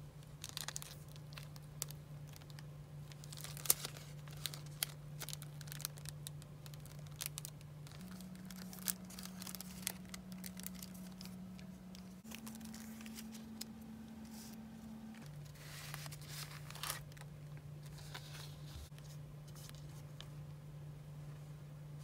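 Paper and plastic packaging rustling and crinkling in a run of short crackles as paper craft pieces are handled. Under it a low steady tone sits in the background, stepping up in pitch about eight seconds in and again about twelve seconds in, then dropping back about fifteen seconds in.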